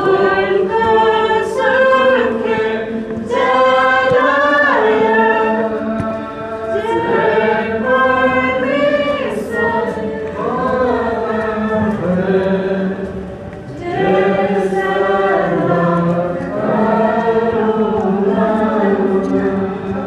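A group of voices singing a hymn together in chorus, phrase after phrase, with no clear instrumental accompaniment.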